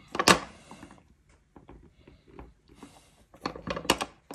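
Aluminium frame extrusions and metal linear rails being shifted and knocked into rough alignment by hand on a hard countertop: a sharp knock about a quarter second in, a few small clicks, then a quick run of metal clicks and taps near the end.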